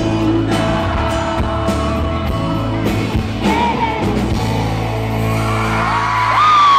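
Live pop band music played loud in a theatre hall, with high-pitched screams and whoops from the audience that swell near the end.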